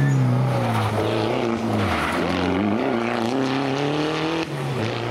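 Rally car engine under hard acceleration, its pitch dropping about a second in, then climbing with revs, with a short dip near the end before it climbs again.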